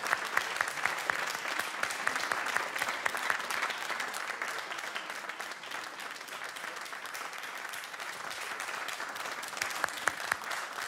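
Seated audience applauding: dense, steady clapping from many hands, a little louder in the first few seconds and easing slightly after that.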